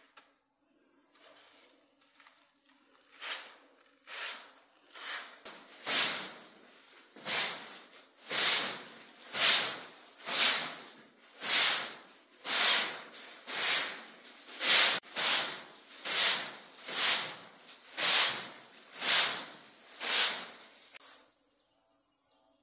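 Rhythmic scraping strokes, about one a second, each swelling and fading; faint at first, loud from about six seconds in, stopping near the end.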